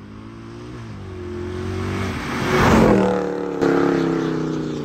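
Mercedes C63 AMG's V8 engine accelerating hard toward and past, growing louder to a peak with a rush of tyre and wind noise near three seconds in, then drawing away as it fades.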